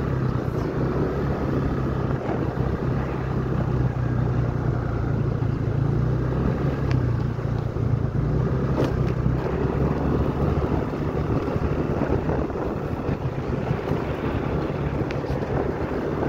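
Small engine of the moving vehicle carrying the camera, running at a steady speed, with wind rushing over the microphone. The engine hum eases off about two-thirds of the way through.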